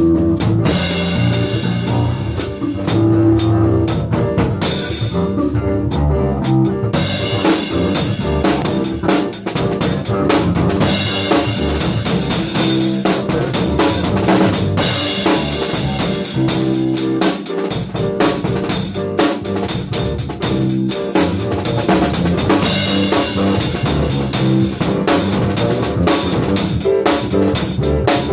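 Funky, syncopated jam on drum kit and bass: kick drum, snare and rimshots played busily under a moving bass line.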